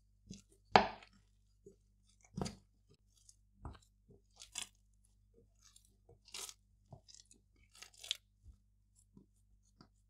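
Thick gluten-free quinoa batter worked in a glass bowl: a wooden spoon stirs, scraping and knocking against the glass, then the sticky dough is squeezed and kneaded by hand. The sounds come as irregular short squelches and scrapes, the loudest about a second in.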